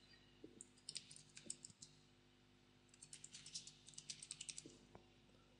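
Faint computer keyboard typing in two short runs of keystrokes, with a pause of about a second between them.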